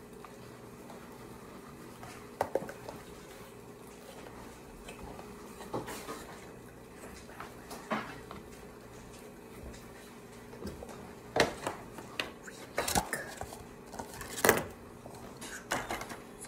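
Hard plastic clicks and knocks from handling an Ultraman action figure and its box, scattered and irregular, coming more often in the second half.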